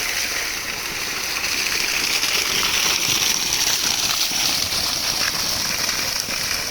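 Running water gushing steadily, starting abruptly just before and holding as an even hiss throughout.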